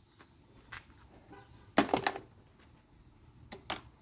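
Scattered clicks and knocks of low-grade scrap wire being handled, with a louder clatter about two seconds in and two quick clicks near the end.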